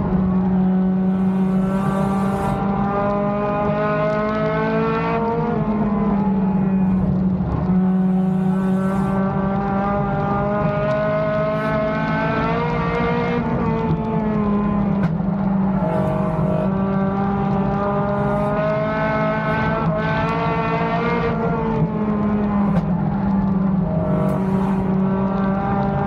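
Lightning 4 class race car's engine heard from inside the cockpit at racing speed. Its pitch climbs for several seconds, drops sharply, then climbs again, about every five to eight seconds, lap after lap around a short oval.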